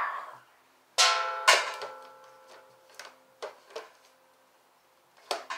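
Metal tools and hardware clanking during battery installation on a motorcycle. Two sharp clanks about a second in, one leaving a ringing tone, then a few lighter clicks.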